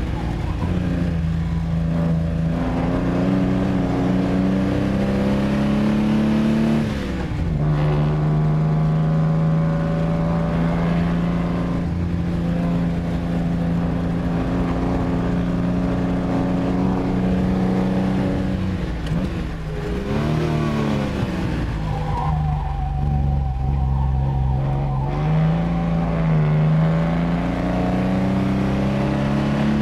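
Lancia Aurelia B20GT's V6 engine heard from inside the cabin, driven hard. The revs climb, drop sharply at a gear change about seven seconds in, climb again, and rise and fall once more around twenty seconds in.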